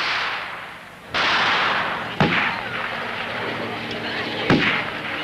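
Street-riot blasts: a loud burst of rushing noise about a second in that carries on, then sharp bangs with a ringing tail at about two and four and a half seconds.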